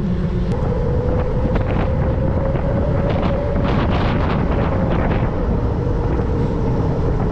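Wind buffeting the microphone on a moving bicycle, with road noise and a steady hum underneath; a short run of light clicks comes about halfway through.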